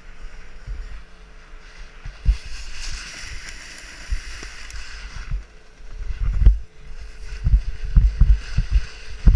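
Snowboard sliding and carving over packed snow with a scraping hiss, strongest in the first half. From about six seconds in, irregular low thumps and wind rumble on the microphone.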